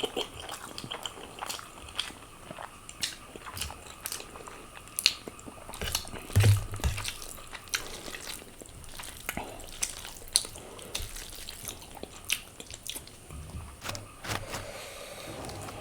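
Close-up eating sounds: someone chewing a mouthful of spicy Korean noodles, with frequent wet mouth clicks and smacks. A low thump comes about six and a half seconds in.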